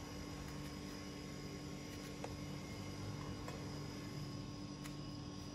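Steady electrical hum with a faint background haze, and a couple of faint light ticks.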